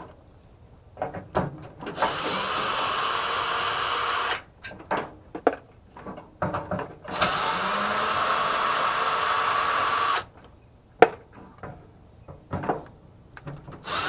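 Power drill-driver spinning out the screws that hold a microwave oven's transformer to its base, in two steady runs of about three seconds each, with small clicks and knocks of handling between them.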